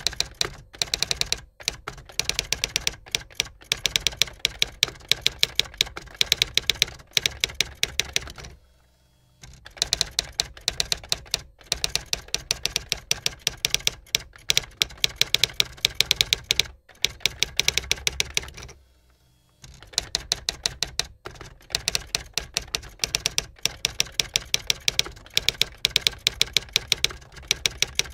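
Typewriter sound effect: keys clacking in rapid runs as text is typed out letter by letter, with two short breaks between runs.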